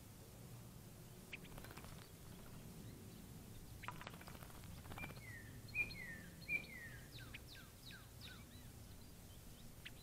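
A songbird calls softly: three short down-slurred notes a little over half a second apart, then a quick run of short falling notes. A few faint splashes from a bird bathing in a shallow bird bath come before the calls.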